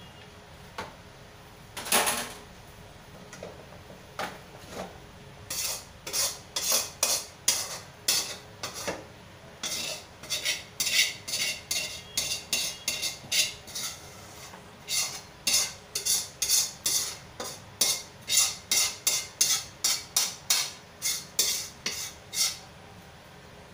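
Metal spatula scraping and clacking against a metal wok as rice noodles are stir-fried, in quick strokes two or three a second. A single louder clank comes about two seconds in.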